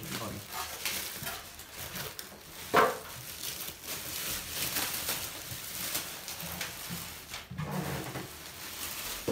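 Plastic wrapping crinkling and rustling as it is peeled off a new microwave oven, with one sharp knock about three seconds in.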